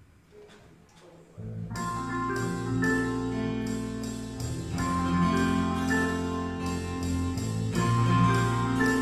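Quiet room for about a second and a half, then a worship band's song intro starts suddenly: low sustained bass notes under a steady pulse of higher struck notes, likely from the keyboard.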